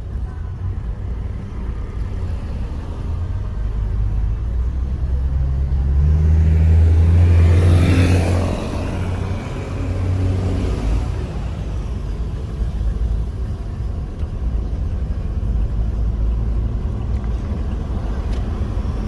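Road vehicle noise: a steady low rumble, with one louder engine swelling and fading near the middle.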